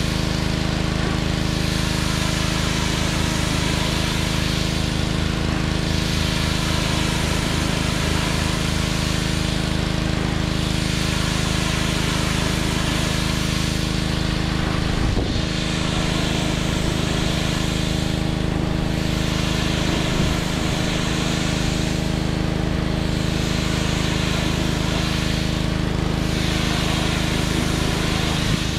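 Pressure washer running steadily, with the hiss of its water jet hitting wooden siding; the hiss drops out briefly several times as the spray is moved or released.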